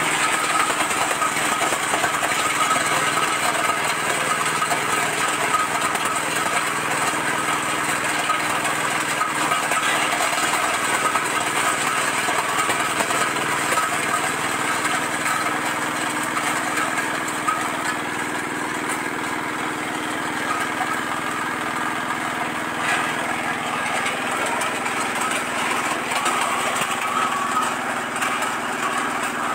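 Areca nut cracking machine running steadily, driven by an 8 hp single-cylinder diesel engine, with the nuts rattling through the cracker and dropping from the chute into a plastic basket.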